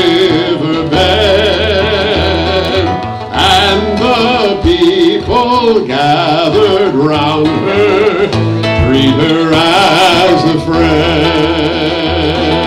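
Live acoustic guitar played with a man's voice singing a melody over it.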